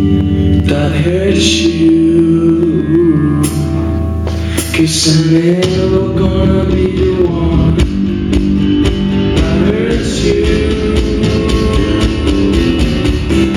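A song: singing over guitar accompaniment, with held low notes in the first half giving way to a more rhythmic strummed pattern.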